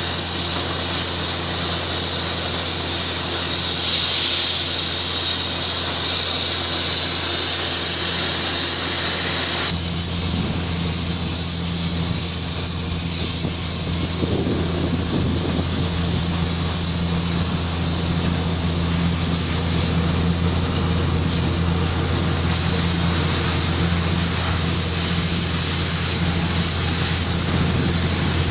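Borewell drilling rig running steadily: a low engine and compressor drone under a strong, steady high hiss. The sound swells briefly about four seconds in and settles a little quieter about ten seconds in.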